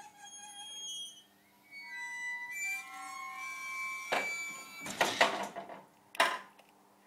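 Hydraulic tail lift platform unfolding. First comes a run of high squeaks at changing pitches over a low steady hum, then three heavy metal clanks as the folded platform swings down and lands flat, the last about six seconds in.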